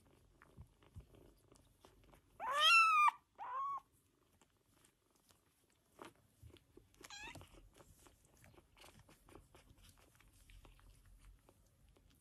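Nursing kittens mewing: a loud high mew that rises and falls a little over two seconds in, a short second mew right after, and a fainter one about seven seconds in. Soft clicking and smacking of suckling runs between the mews.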